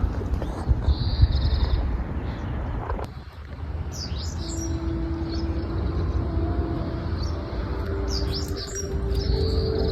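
Small birds chirping over a steady low rumble. About four seconds in, a distant outdoor loudspeaker starts a slow chime melody of long held notes, a municipal disaster-prevention radio chime sounding the hour.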